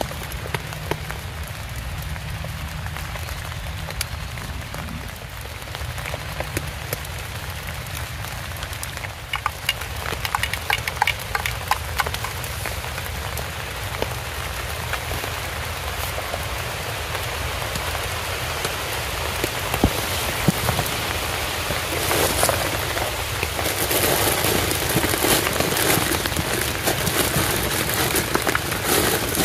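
Rain falling, a steady patter of drops that grows heavier and denser about three quarters of the way through.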